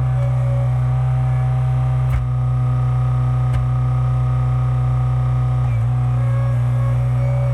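Skid steer engine running steadily at one pitch, driving the hydraulics of a log splitter attachment, with two brief knocks about two and three and a half seconds in.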